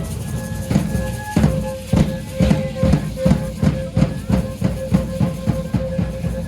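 Drum music for a danza de pluma: drum strokes start slowly about a second in, then quicken to about four a second, and stop shortly before the end. Under them runs a steady high held tone.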